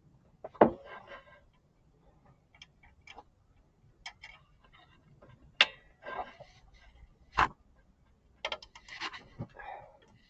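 Nylon cable tie being cinched tight by hand, its ratchet clicking irregularly, with three sharper clicks standing out. It is drawing two A/C line fittings together so they can be screwed on.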